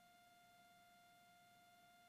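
Near silence on the headset intercom feed, with only a faint steady whine.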